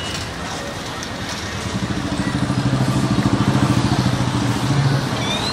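Road traffic with a small vehicle engine running close by, its low pulsing note growing louder from about two seconds in and easing off near the end.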